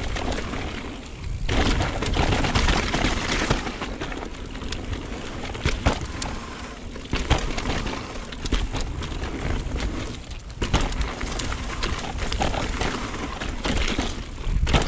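Mountain bike descending a dirt and gravel trail: continuous tyre noise with frequent rattling knocks from the bike over bumps, easing briefly about a second in and again about ten seconds in.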